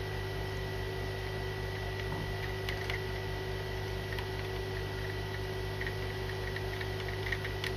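Steady electrical hum from workbench equipment, with a few faint small clicks and taps of work on the board.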